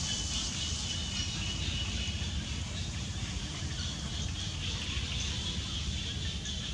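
Steady outdoor background noise: a high hiss over a low rumble, with no distinct calls or knocks.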